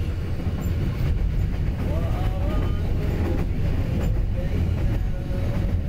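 Train running at speed, heard from inside a passenger carriage: a steady low rumble of the wheels on the track.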